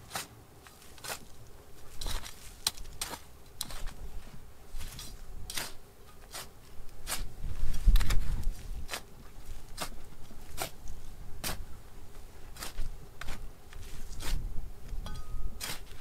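Small hand trowel stabbing and scraping into dry gravelly soil, a short scrape every half second or so at an irregular pace, with a louder low rumble about halfway through.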